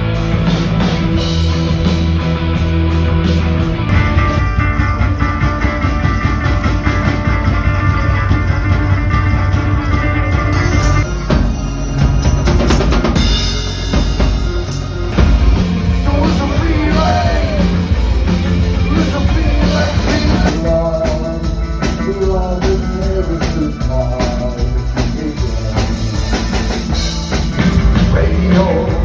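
Live post-punk tribute band playing a driving rock song with steady drum kit and bass. The sound fills out about four seconds in, and singing comes in from about halfway.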